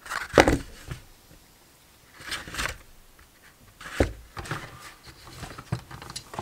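Cardboard packaging handled during an unboxing: short scraping and rustling strokes, with a single knock about four seconds in.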